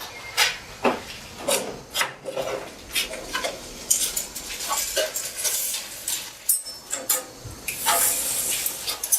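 Steel pieces being handled on a bench: irregular knocks, clinks and scraping rubs, with no saw running.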